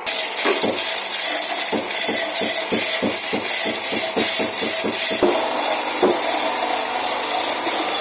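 Hand tool working metal engine parts in quick back-and-forth strokes, about four a second, over a steady hiss. The strokes run from about two seconds in to just past the middle.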